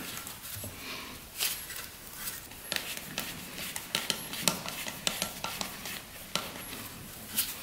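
Light, irregular metallic clicks and scrapes of a screwdriver working a hose clamp on a rubber fuel line at a motorcycle carburetor, as the clamp is tightened.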